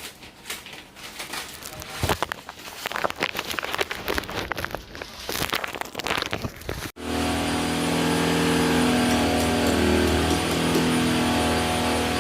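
Irregular clattering and knocking, then, about seven seconds in, a steady motor hum running on evenly.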